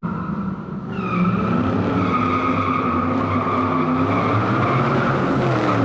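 Car tyres squealing steadily over a running engine, starting abruptly.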